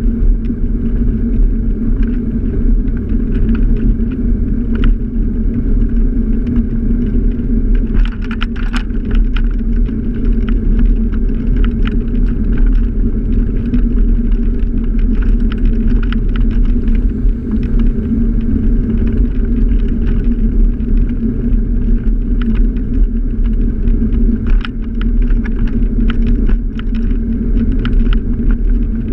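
Scooter riding along a street: a steady, muffled rumble of motor and road vibration, with scattered light rattles and clicks.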